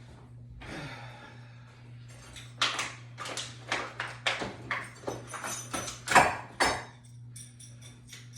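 Hard objects clattering and knocking together: a dozen or so sharp knocks in quick succession, starting about two and a half seconds in and stopping about seven seconds in, over a steady low hum.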